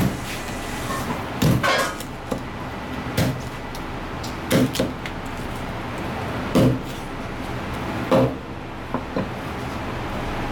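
Kitchen knife chopping through flathead fish head and bones on a plastic cutting board: sharp knocks every second or two, some in quick pairs. A steady hiss runs underneath.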